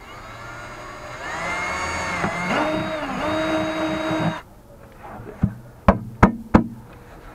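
Ryobi cordless drill running for about four seconds, rising in pitch as it speeds up, dipping briefly about two seconds in, picking up again and then stopping abruptly. A few sharp knocks follow near the end.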